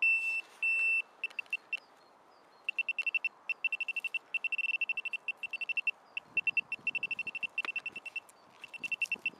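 Handheld metal-detecting pinpointer probe beeping at a high pitch as it is pushed into the dig hole, signalling metal still down in the hole. It gives two long beeps, then rapid beeps several a second that nearly merge into a steady tone around the middle and carry on in bursts.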